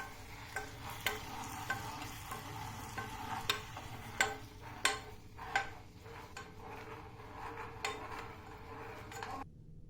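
A spoon stirring hot caramelized honey-and-spice candy syrup in a pot, clicking irregularly against the pot over a faint sizzle; it cuts off abruptly near the end.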